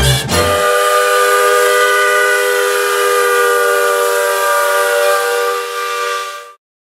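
Steam locomotive whistle blowing one long chord of several notes at once, held for about six seconds and then cut off sharply near the end. A brief low rumble is heard right at the start.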